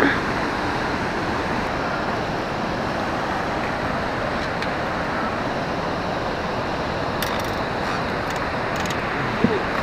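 Steady rushing noise of wind and river water around a drifting fishing boat, with a few faint clicks near the end.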